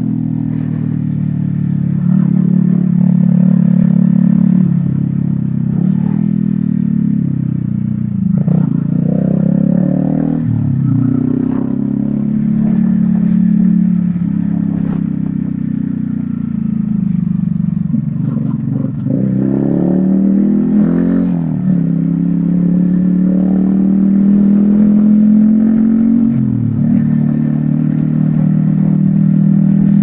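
Yamaha XSR155's single-cylinder engine running through a DIY exhaust, its pitch dropping and climbing again several times as the bike is ridden, with scattered knocks and rattles from riding an uneven road.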